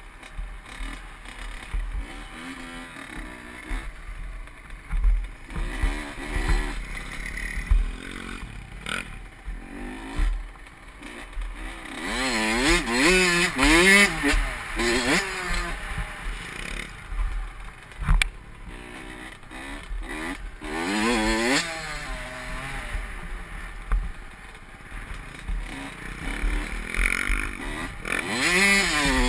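Honda CR85 two-stroke dirt bike engine revving up and down with the throttle, heard from the rider's helmet, with a low rumble of wind on the microphone. The revving is loudest about halfway through and again near the end.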